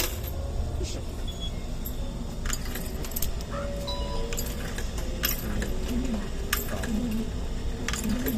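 Streetcar interior: the steady low rumble of the tram with scattered sharp metallic clicks and rattles.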